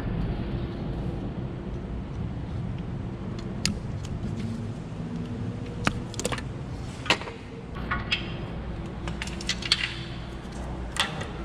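Scattered sharp clicks and light clinks of hands working plastic wiring clips and an electrical connector, over a low steady hum.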